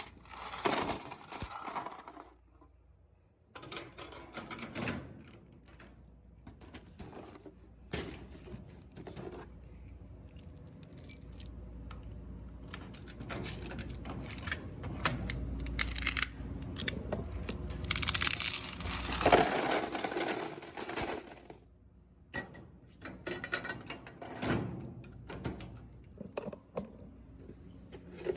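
Quarters clinking and rattling as they are handled, with scattered clicks and knocks and a longer, louder spell of coins about two-thirds of the way through.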